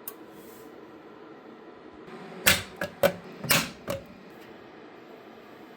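Five or so sharp clicks and knocks in quick succession, from about two and a half to four seconds in, over a faint steady hum.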